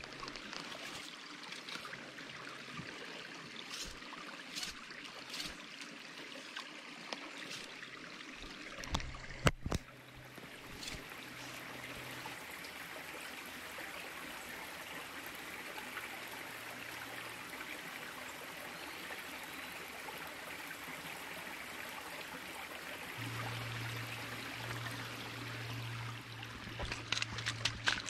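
Small rocky mountain stream running and trickling over stones, a steady water hiss. Scattered clicks and knocks through the first ten seconds, one sharper click near ten seconds, and a low hum joins near the end.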